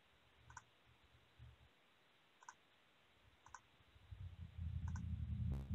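Faint sparse clicks, spaced about a second apart, then a low rumble starting about four seconds in.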